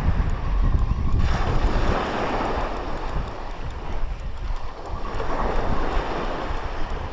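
Wind buffeting the microphone, heaviest in the first two seconds, over waves washing on the shore, which swell about a second in and again near five seconds.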